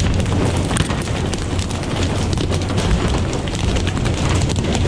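Loud steady rush of wind and water spray over the low, constant drone of a fishing boat's engine, with scattered small clicks and knocks throughout.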